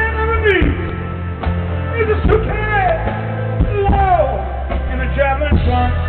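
Live rock band playing, with a male lead singer holding long notes and sliding down in pitch several times over a steady bass and drums.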